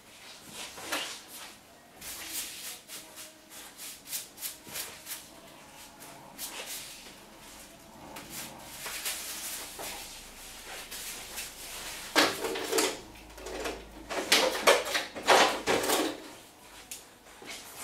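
Short rubbing and handling noises as a towel dries short hair and a cape is adjusted, then a run of louder rattles and clatters about twelve seconds in, lasting several seconds, as tools are rummaged in a salon trolley drawer.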